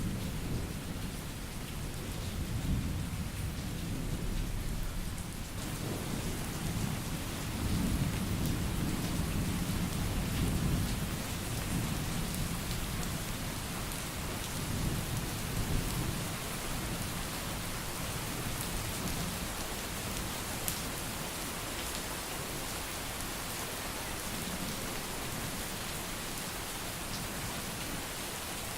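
Thunderstorm: steady rain with thunder rumbling long and low through the first half, dying away about halfway through. The rain gets heavier a few seconds in.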